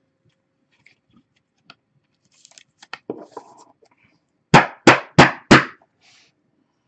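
Faint clicks and rustles of a trading card being handled, then four quick, loud knocks about a third of a second apart, a little past the middle.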